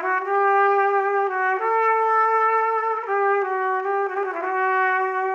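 Background music: a solo brass melody, trumpet-like, of a few long held notes that change pitch every second or so.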